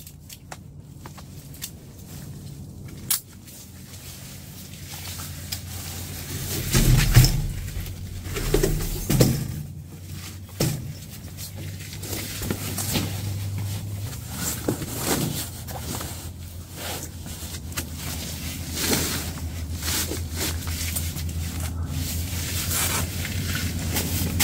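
A folding camp cot being set up by hand: the fabric rustles, and the metal frame and legs click and knock as they are fitted, with the loudest scrapes and thumps about seven to ten seconds in.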